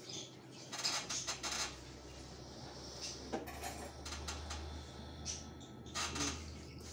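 Metal objects clinking and clattering in a few short clusters, over a low steady hum that begins about half a second in.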